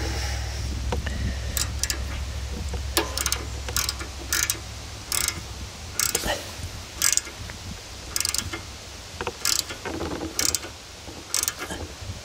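Socket ratchet clicking in short runs, about once a second, as it turns the centre bolt of a bearing puller to draw a stuck bearing race off a trailer axle; the race is coming off slowly.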